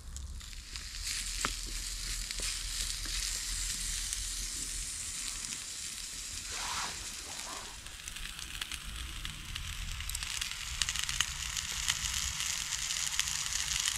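Sliced red peppers and mushrooms sizzling in a frying pan on campfire embers: a steady frying hiss with small crackles.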